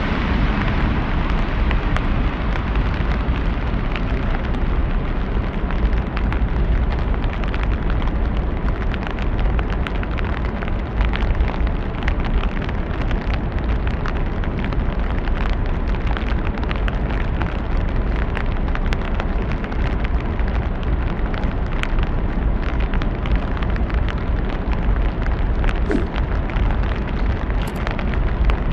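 Heavy city rain: a steady hiss of rainfall with many close, sharp drop ticks and a constant low rumble underneath.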